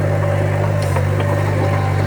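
Heavy diesel engine of a Komatsu D51PX bulldozer running steadily at an even, low-pitched drone, with faint clicks and clanks over it.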